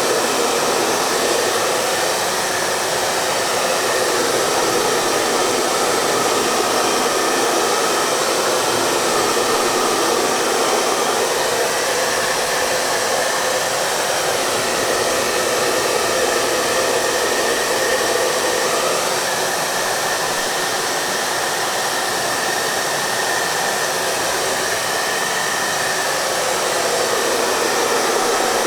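Hair dryer running continuously: a steady rush of blown air, with a faint drifting hum in its middle tones.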